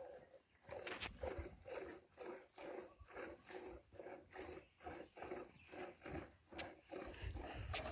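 Milk squirting into a plastic jug as a cow is milked by hand, in even spurts about two to three a second. A low rumble comes in near the end.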